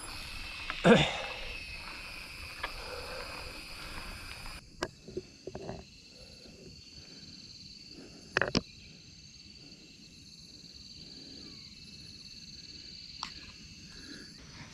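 Steady high-pitched insect chorus, with a loud knock about a second in. About four and a half seconds in the sound changes abruptly and gets quieter, with a few short sharp clicks, the loudest about eight seconds in.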